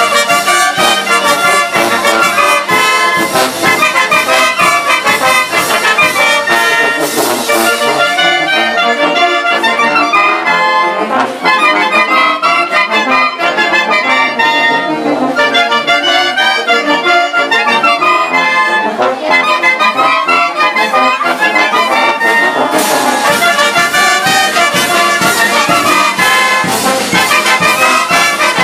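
Village wind band playing a dance tune: clarinets and flutes carry the melody over trumpets and sousaphones, with a steady drum beat.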